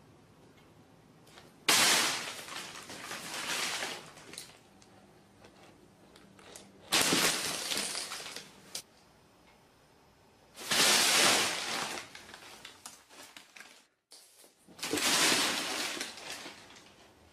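A large sheet of paper crinkling and crackling as a cat plunges into and scrambles about in it. The sound comes in four loud bursts a few seconds apart, each starting sharply and dying away over a second or two.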